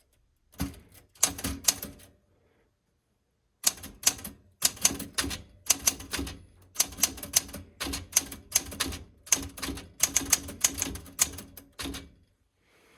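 Smith Corona Classic 12 manual typewriter being typed on, its touch selector set to medium: a few keystrokes, a pause of about a second and a half, then a steady run of rapid key clacks that stops near the end.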